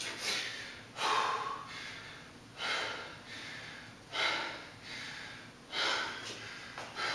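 A man breathing hard in heavy, gasping breaths, about one every second and a half, as he catches his breath hunched over between sets of a thrusters and chest-to-bar pull-up workout.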